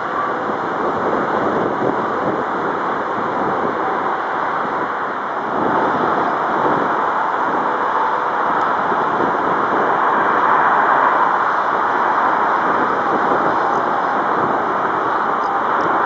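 Boeing 757-200's twin jet engines at takeoff power during the takeoff roll, heard from a distance as a steady jet noise that grows louder about five seconds in.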